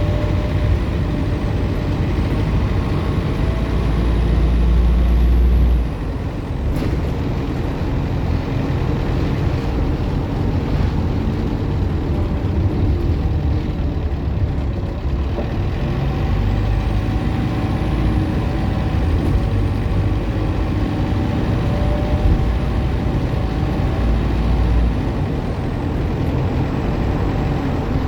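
Optare Solo M950 bus's diesel engine pulling hard twice, with a high-pitched turbocharger whine that rises as the bus accelerates and falls away when the power comes off. The first pull cuts off suddenly about six seconds in, and the second starts about ten seconds later.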